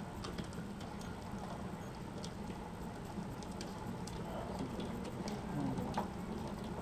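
Light scattered clicks and rustling of hands handling a model helicopter's airframe, over a steady low background hum.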